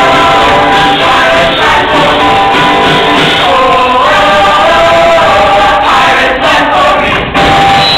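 A large mixed chorus of stage performers singing together in a musical number, loud and continuous.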